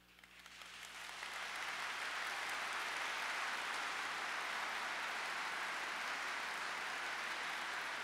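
Large audience applauding, the clapping building up over the first second or two and then holding steady.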